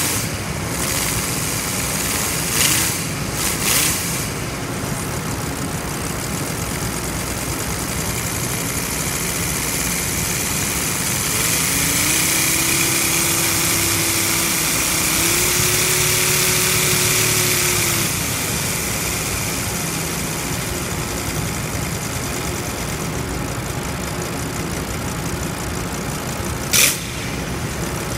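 Small model five-cylinder radial engine running steadily with a hissing, rattling noise. It picks up speed for several seconds around the middle, then settles back. A few sharp knocks come near the start and again near the end.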